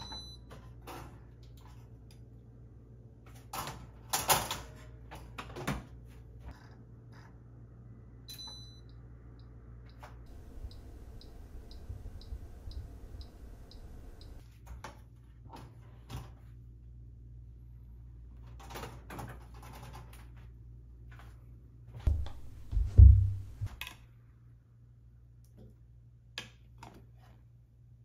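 Clicks and knocks of a Balmuda toaster oven being loaded and set, then a run of soft, even ticks about twice a second from its wind-up timer, over a low steady hum. Near the end come a few dull thumps.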